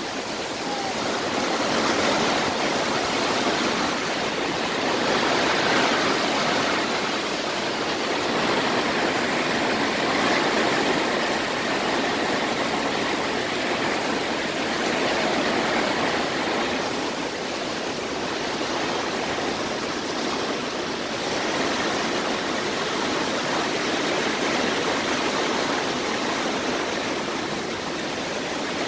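Torrential thunderstorm rain pouring down, a dense, steady hiss that swells and eases gently.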